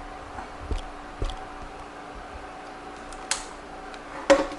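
A few scattered handling clicks and light knocks: two soft thumps early, then two sharp clicks, the second and loudest near the end, over a faint steady hum.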